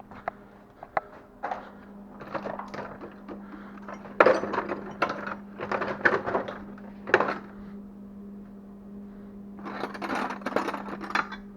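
Metal hand tools and engine hardware clinking and clattering in irregular bursts as bolts are undone, over a steady low hum.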